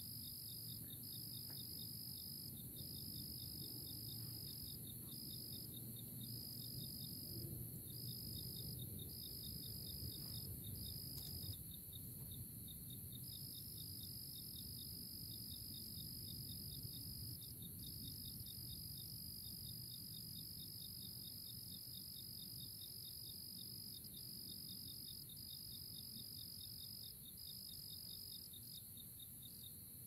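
Crickets chorusing: a high, steady trill broken by brief pauses every few seconds, over a second, faster pulsing call, with a low rumble beneath.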